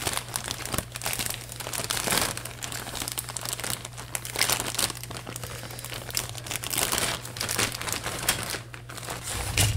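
Clear plastic bag crinkling and rustling steadily, with small irregular crackles, as plastic model-kit sprues are handled and bagged. A steady low hum runs underneath.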